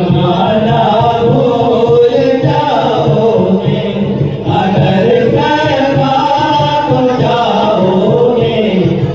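A group of men singing a devotional chant together without instruments, their voices amplified through microphones.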